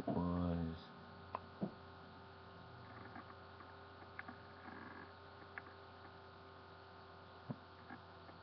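Steady low electrical mains hum with a few faint scattered clicks, after one drawn-out spoken word at the very start.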